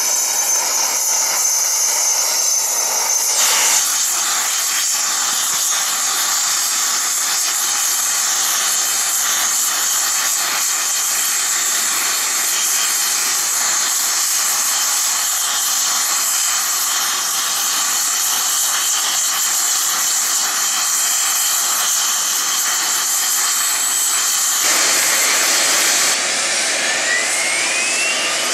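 Embraer EMB-135BJ business jet on the ramp with a steady high-pitched turbine whine and hiss. Near the end a rising whine sets in as a Rolls-Royce AE 3007 turbofan spools up on engine start.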